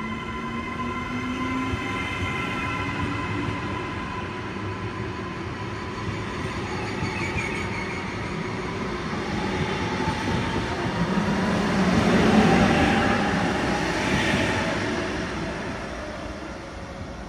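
Electric passenger train moving through the station: the whine of its traction motors, with tones rising in pitch through the second half as it gathers speed, growing loudest about two-thirds of the way through and then fading.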